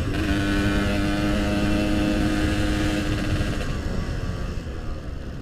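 Yamaha RX-King's two-stroke single-cylinder engine running at a steady speed on the move, then easing off and fading about four seconds in.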